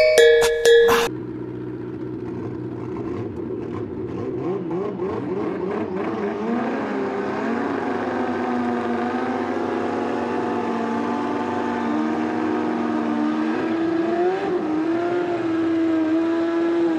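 Drag-racing motorcycle engines revving hard and held at high revs during burnouts at the start line, the pitch climbing a little in the second half.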